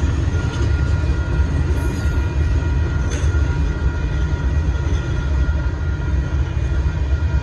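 Union Pacific freight train of boxcars rolling through a grade crossing: the steady, even rumble of the cars' wheels on the rails, with a thin steady high tone above it.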